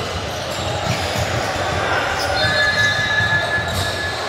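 Indoor basketball game noise in a large gym: a basketball bouncing on the court amid general hall din. About two seconds in, a steady high-pitched squeal is held for about a second and a half.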